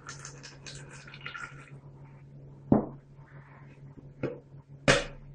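Warm water trickling from a glass jar into a plastic cup, stopping a couple of seconds in, then three sharp taps of an egg being cracked against the cup.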